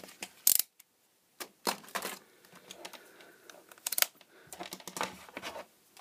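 Scattered plastic clicks and knocks of a handheld capacitance meter being picked up and moved aside on the bench. The loudest knock comes about half a second in, with more clicks around two seconds and four seconds.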